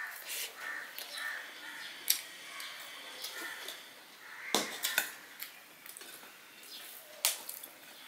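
Chewing and hand-eating sounds, broken by several sharp clinks of a stainless-steel bowl against a steel plate and table as the bowl of fried red amaranth greens is served from and set down; the loudest clinks come about halfway through.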